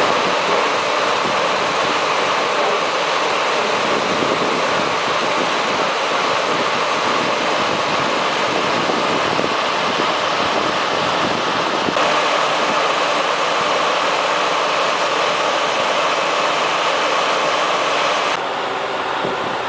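Boom truck crane's engine running steadily while it holds the load, heard as an even noisy drone that shifts abruptly about twelve seconds in and again near the end.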